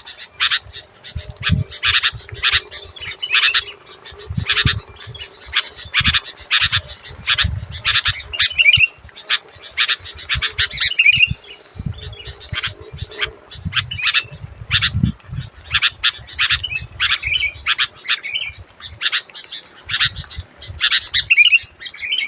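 Sooty-headed bulbul (kutilang) calling loudly. Harsh, scratchy notes repeat about twice a second, broken now and then by short warbled phrases.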